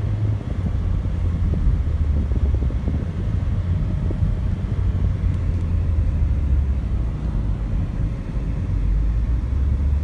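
Car engine and road noise heard from inside the cabin while driving, a steady low rumble whose pitch dips slightly a few times.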